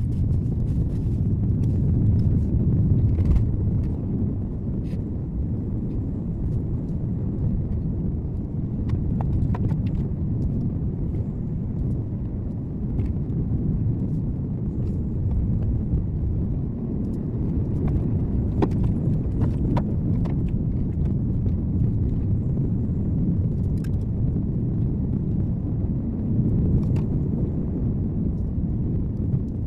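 Car driving along a road, recorded by a dashcam: a steady low rumble of tyre and engine noise with scattered small clicks and knocks.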